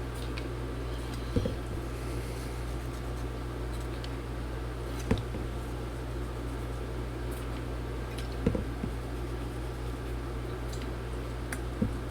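Steady low hum of room or equipment noise, with four brief light clicks and taps a few seconds apart from small objects being handled.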